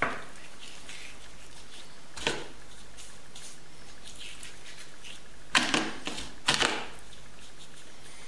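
Hands handling a raw chicken on a cutting board, working rub under and over the skin: soft wet squishing with a few sharp slaps, one at the start, one about two seconds in, and two close pairs near the end.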